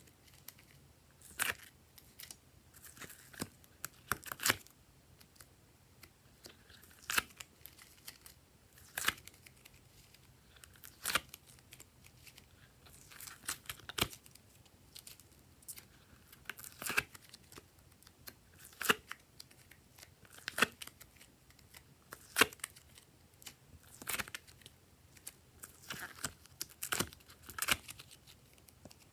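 Glossy slime being worked by hand, giving sharp pops and clicks every second or two, with softer crackles between.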